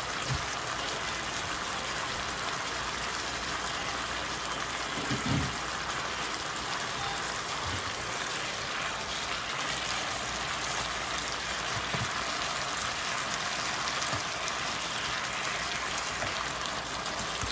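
Chicken strips sizzling in an electric skillet: a steady, even hiss. A silicone spatula stirs them in the second half, and there is a brief low thump about five seconds in.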